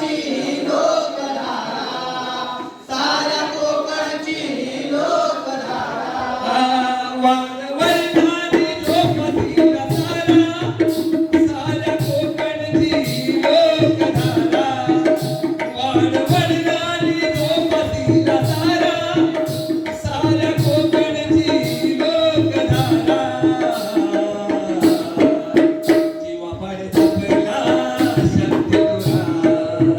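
Jakhadi folk music: a male voice sings alone at first, then about eight seconds in a hand drum comes in with a fast, even beat under the singing and a steady held note.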